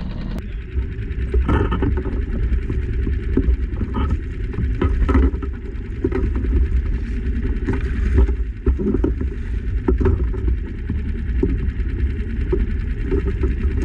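Wind rumbling on the microphone of a small skiff at sea, with scattered knocks and splashes as a hooked yellowtail thrashes at the surface beside the hull.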